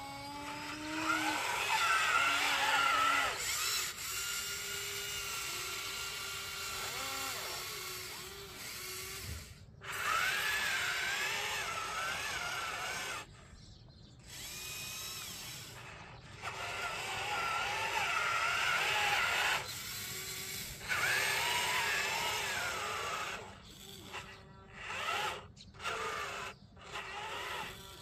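Small electric motors and gearboxes of radio-controlled construction models whining. Their pitch rises and falls as they speed up and slow down, in runs of a few seconds with brief stops, breaking into short bursts near the end.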